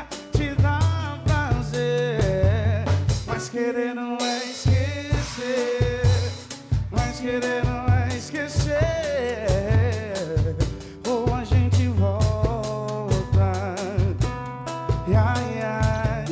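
Pagode music: a band playing a steady samba beat on drums and percussion with bass, and a voice singing the melody.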